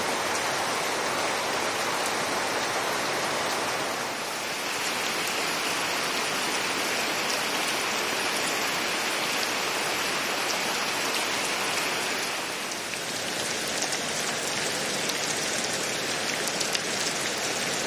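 Steady rain falling, an even hiss of many drops. Its tone shifts twice, about four seconds in and again about two-thirds of the way through, with a few sharper drop hits near the end.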